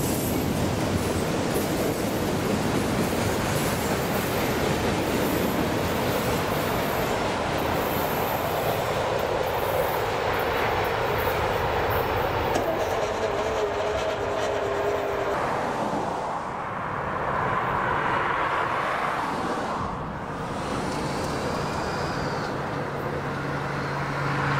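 Autorack freight cars rolling past on steel wheels, a steady rumbling clatter over the rail joints with a brief wheel squeal around the middle. The rolling noise eases off in the later part as the end of the train moves away.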